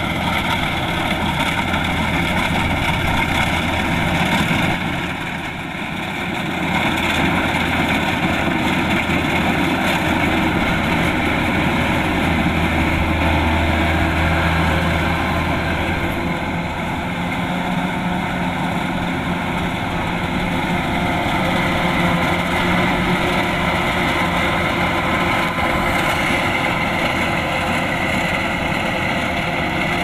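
Kubota DC-105X combine harvester running steadily under load, its diesel engine and threshing gear giving a continuous mechanical drone. About halfway through, the deep low hum drops away and a slightly higher engine tone takes over.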